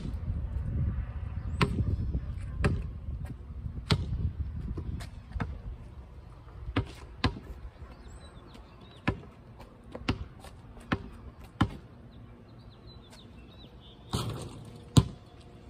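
A rubber ball bouncing on a concrete driveway: sharp slaps at irregular intervals, about one a second, thinning out in the middle. Birds chirp faintly.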